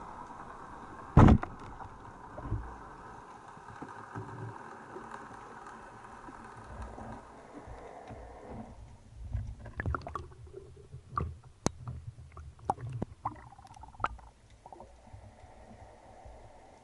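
Underwater sound: one sharp, loud crack about a second in, then a scatter of clicks and low knocks over a steady hiss that drops away a little past halfway.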